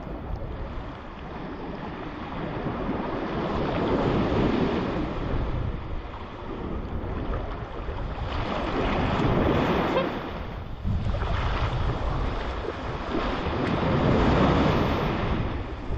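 Small waves breaking in shallow surf and washing up over sand, swelling louder about every five seconds as each wave comes in, with wind buffeting the microphone.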